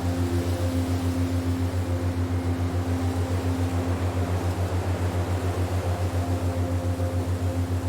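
Relaxation soundtrack: a low droning hum pulsing evenly about six times a second, with soft sustained higher tones above it, over an even hiss.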